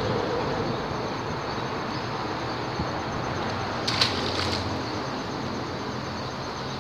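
Steady rush of traffic noise from the highway bridge overhead. About four seconds in there is a brief splash as a released catfish is let go into the river.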